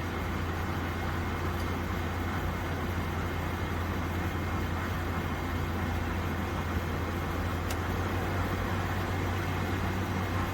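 Steady machine hum with an even hiss, a strong low drone under it, and one faint click about three-quarters of the way through.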